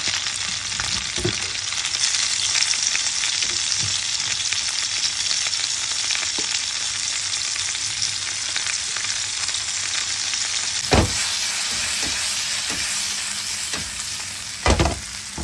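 Halved cherry tomatoes frying in hot olive oil in a frying pan, a steady sizzle. Two sharp knocks come near the end.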